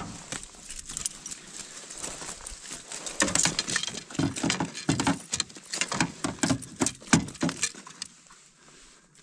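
Irregular knocks, taps and rattles inside an aluminium boat as a freshly landed brook trout is handled in the landing net, busiest in the middle and stopping about eight seconds in.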